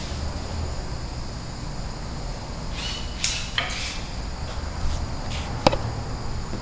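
Workshop background of a steady low hum and a faint high whine, with a short metallic clatter of parts being handled about three seconds in and a single sharp click near the end.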